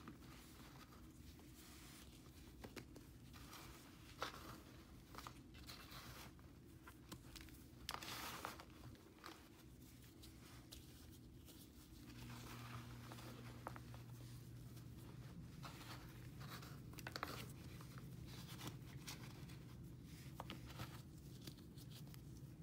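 Dried cleaning paste crumbled by hand in a metal tray: soft, scattered crunches and brief rustles of powder sifting through fingers. A faint steady low hum comes up about halfway through.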